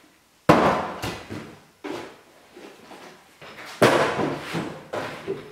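Loud bangs and clatter of hard objects being knocked about: two big bangs, about half a second in and just before four seconds, each dying away over about a second, with smaller knocks in between and near the end.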